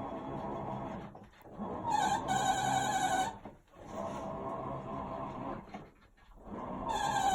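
Sharp ES-GX8A washing machine making its abnormal noise while running: a high, whining tone about a second and a half long recurs every four to five seconds, over a lower churning rumble. It is the fault noise that appeared after about a year and a half of use.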